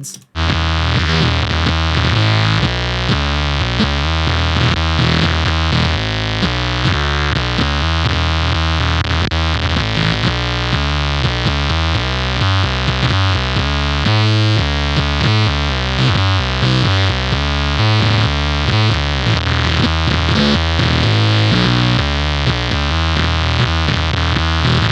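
Electric bass guitar played through a fuzz pedal with both of its sides combined, a continuous bass line of quickly changing notes. The setting turns the bass into a synthesizer-like sound.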